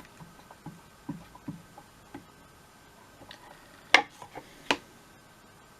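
Light taps and clicks of fly-tying tools and materials being handled at the vise, with two sharper clicks close together about four seconds in.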